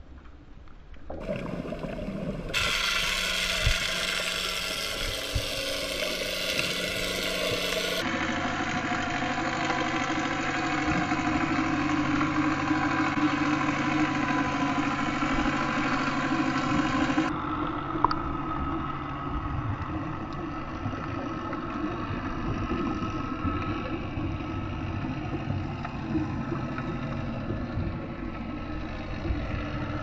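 Raw underwater sound picked up by a GoPro in its housing: a steady motor hum with several low tones, typical of boat engines heard through the water, changing abruptly where clips are cut. A single sharp click about 18 seconds in.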